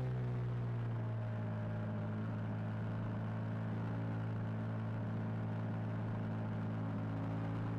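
KTM 990 Super Duke's V-twin engine heard from a camera mounted on the bike: its note drops in the first moment, then holds steady while the bike leans through a corner.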